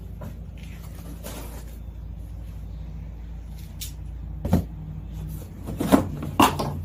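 Large cardboard shipping box being handled and opened: a few sharp knocks and scrapes of cardboard, most of them in the second half. Under them runs a steady low hum that fades out near the end.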